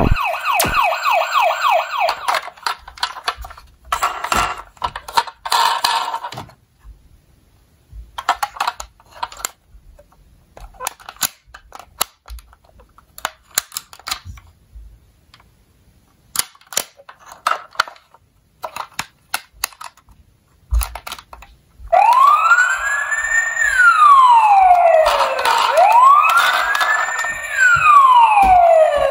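Toy ambulance's battery-powered electronic siren wailing, rising and falling about once every three seconds, starting about two-thirds of the way in. Before it there is a fast-pulsing electronic siren tone for the first few seconds, then scattered clicks of plastic toy parts being handled.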